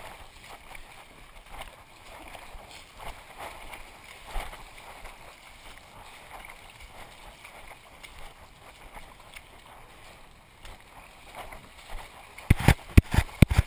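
Feet splashing and sloshing through a shallow stream as a runner wades upstream, water churning with each stride. Near the end, a quick run of loud thumps and splashes.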